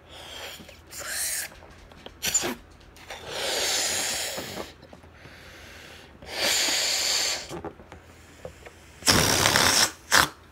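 A rubber balloon being blown up by mouth: four hard exhales into it, each about a second long, the last one the loudest, with short quick breaths in between.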